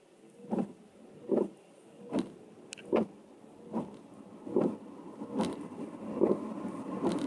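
Car windscreen wipers sweeping across a wet windscreen, heard from inside the car, one stroke about every 0.8 seconds. Over the last couple of seconds the hiss of tyres from passing traffic on the wet road grows louder.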